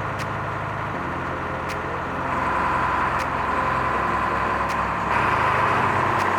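A motor vehicle engine running, with a steady low hum that shifts in pitch a few times, over general traffic noise.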